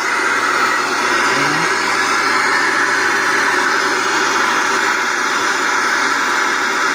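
Loud, steady static hiss from an LG 21-inch CRT television's speaker with no signal connected, a sign that the set is powered and working again.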